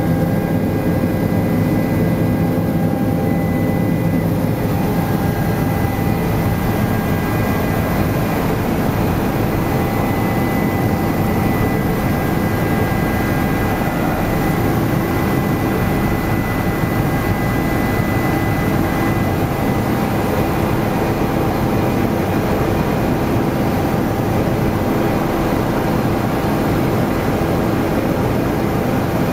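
Helicopter in flight heard from inside the cabin: a steady loud drone of engine and rotor, with several steady whining tones above it.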